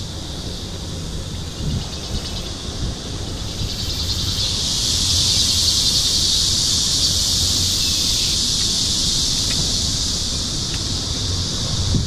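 Summer cicadas buzzing in a steady, high-pitched chorus that grows louder in the middle, over low wind rumble on the microphone.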